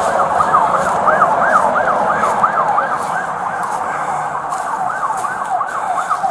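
Emergency vehicle siren on a fast yelp, its pitch sweeping up and down about four times a second.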